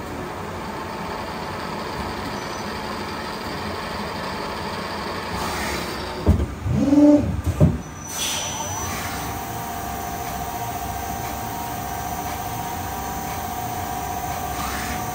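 Miyano BND-42S5 CNC lathe running its machining cycle: a steady mechanical hum, broken about six to eight seconds in by a cluster of louder whirs and knocks as the tool turret moves to another tool, then a steady whine.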